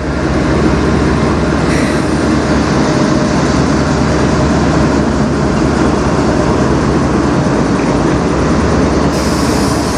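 Diesel freight locomotives of a slow-moving CN manifest train passing, engines running with a loud, steady rumble.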